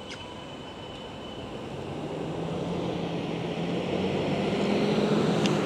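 A vehicle engine humming as it draws near, growing steadily louder toward the end and then starting to ease off as it passes.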